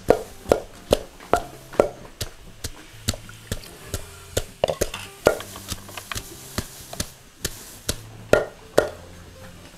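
Food being chopped with a knife: sharp, even strikes about twice a second, with a short pause shortly before the end.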